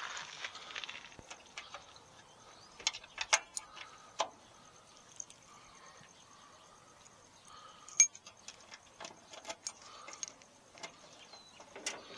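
A key ring jangling, with scattered metallic clicks as a key works the trunk lock of a 1959 Ford Fairlane; the sharpest click comes about eight seconds in.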